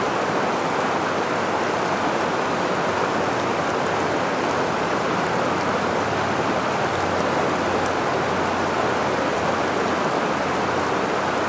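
Steady rush of a mountain river cascading over rock, an even unbroken water noise.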